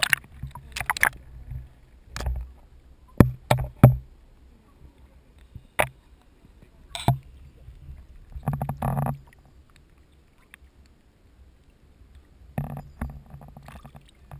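Pond water lapping and slapping against a camera held right at the waterline beside a wooden edge: irregular sharp slaps, with a couple of short gurgling sloshes in the second half.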